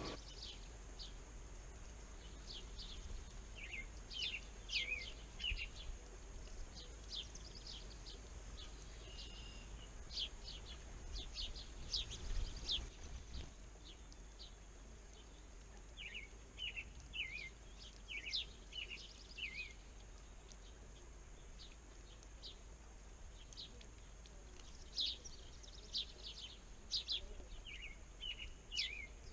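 Small songbirds chirping: short high chirps, some single and some in quick clusters, coming on and off throughout.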